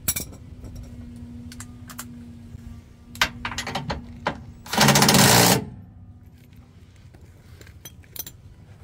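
Cordless impact wrench hammering on the Jeep Gladiator's rear lower control arm frame-side bolt in one burst of just under a second, about five seconds in. A few short clicks and rattles come just before it.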